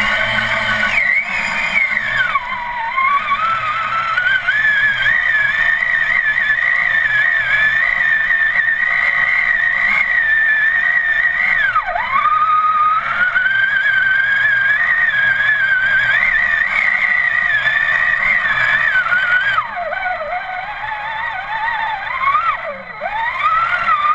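Traxxas Summit RC truck's stock Titan 775 electric motor and drivetrain whining as it drives through mud and water. The pitch rises and falls with the throttle, dipping low about two seconds in, again near the middle, and twice near the end before climbing back up.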